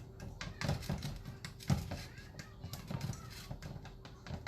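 Spoon scraping and knocking against a pan while stirring and breaking up melting cheese sauce: a few sharp clinks roughly every second over a steady faint hum, with faint music in the background.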